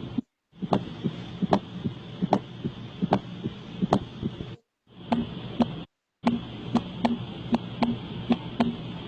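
Recorded heart sounds as heard through a stethoscope: a regular lub-dub beat, about one heartbeat every 0.8 s, with a steady hiss between the beats. It comes as three short recordings separated by brief silences, about half a second in and twice more after four and six seconds.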